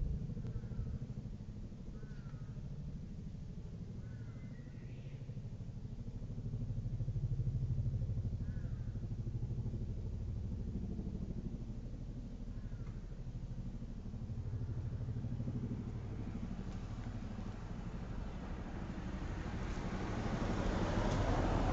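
Helicopter passing over: a low, rapidly pulsing rotor drone that swells and eases, with a few short bird chirps in the first half. Near the end, a small car coming up the street grows louder over it.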